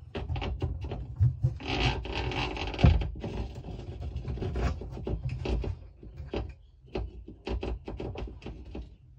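A thin wire pick scraping, rubbing and tapping inside a fuel tank in irregular strokes as it fishes for a small dropped part, over low rumbling handling noise.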